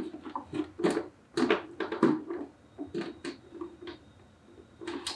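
Hands working plastic water-purifier tubing and push-fit fittings: a string of irregular light clicks, taps and rustles.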